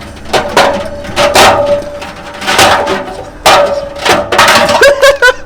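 Washing-machine drum spinning fast with a spray-paint can inside: a steady motor whine under four or five loud, rushing clatters.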